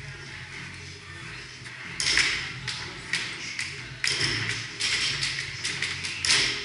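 Barbells and weight plates knocking and clanking in a gym, with a few sharp knocks about two seconds in and a cluster from about four seconds on, over indistinct chatter.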